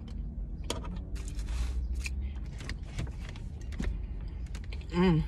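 Close-up chewing with wet mouth clicks and smacks over the steady low rumble of the car. A short hummed 'mm' comes near the end.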